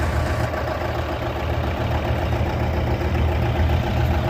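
Excavator's diesel engine idling steadily.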